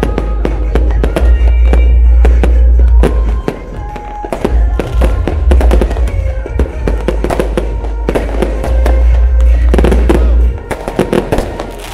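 Aerial fireworks bursting in quick succession, many sharp bangs and crackles, with music playing underneath; the bursts ease off near the end.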